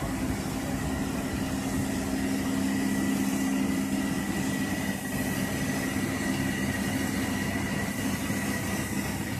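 Steady machine drone from auxiliary power equipment serving a parked Airbus A400M whose propellers are stopped. It is a constant low two-note hum with a faint high whine above it.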